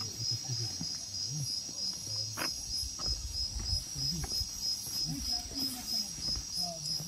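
Night insects chirping in a steady, even pulse, about three chirps a second, with soft low thumps underneath.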